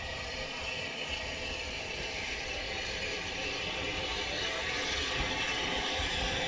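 Southern Railway Battle of Britain class steam locomotive No. 34081 '92 Squadron' drawing slowly into the platform: a steady hiss of steam over a low rumble, growing gradually louder as it comes closer.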